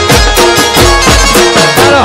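Instrumental Gujarati folk music: a steady, driving percussion beat with low thumps under a short melodic riff that repeats.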